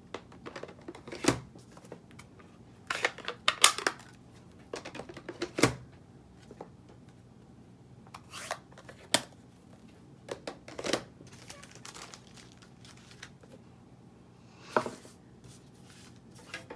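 Irregular clicks, taps and knocks of plastic stamping supplies being handled: ink pad cases closed, picked up and set down on the work table, with a quick cluster of clicks about three to four seconds in.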